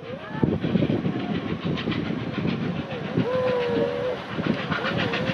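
Heritage steam locomotives running hard on a parallel run, fading in: a heavy, rough rush of exhaust and running noise with short whistle calls that rise and fall in pitch.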